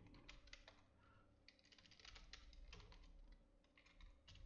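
Faint computer keyboard typing: a run of quick, uneven keystroke clicks.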